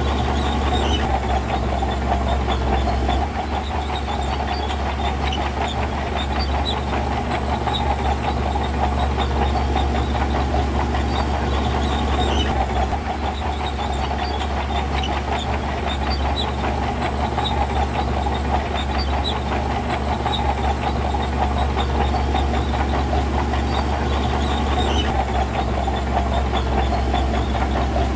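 Heavy diesel earthmoving machinery running steadily: a constant deep engine drone with a strong mid-pitched band over it and scattered small metallic ticks.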